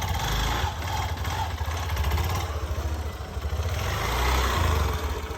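A motorcycle or scooter engine running steadily as it is ridden, its low hum under a continuous rushing noise.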